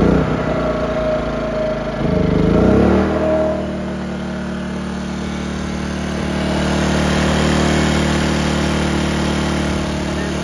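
Firman W2000i inverter generator's small single-cylinder engine running just after a one-pull start with the choke pulled, after four months unused. Its speed rises and dips for the first few seconds, then settles into a steady run.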